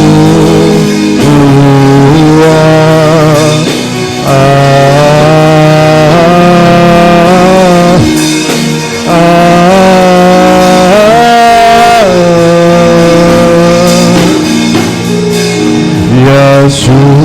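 Slow worship music: a voice holding long, wavering notes over steady held chords.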